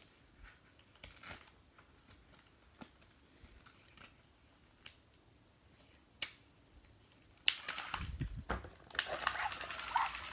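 Faint rustling and clicks of a plush toy being handled, then about seven and a half seconds in the Disney Baby Pluto walking toy starts up with a few thumps as its motor runs. From about nine seconds its electronic barking plays from its small speaker over the motor.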